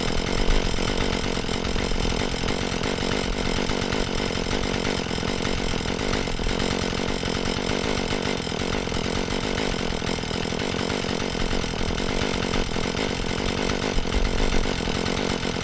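Husqvarna 435 two-stroke chainsaw running steadily at an even speed.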